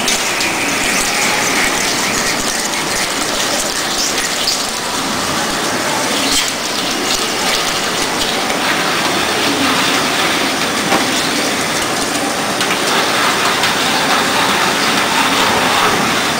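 A CNC drilling center's 24 mm oil-through drill cutting through a 64 mm stack of four plates at about 400 rpm, with coolant fed through the bit. The result is a steady rushing hiss of coolant spray over the machine's running noise, with a few faint clicks.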